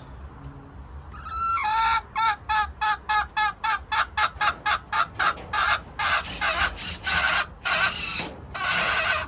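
A hen cackling loudly: a fast run of short clucking calls, about three to four a second. Toward the end the calls turn into longer, harsher squawks.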